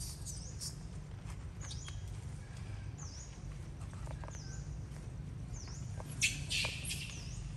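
A bird repeats a short, high chirp that dips and rises in pitch, about once every second or so, over a low steady rumble. About six seconds in comes a brief, louder scraping hiss.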